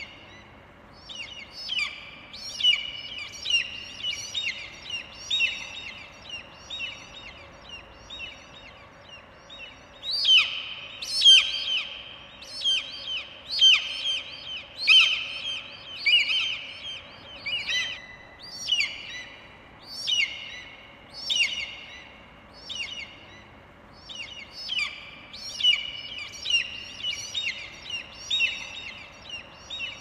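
Eagle calling: a long run of sharp, high-pitched notes, each dipping quickly in pitch as it starts, repeated about one to two times a second, loudest through the middle stretch.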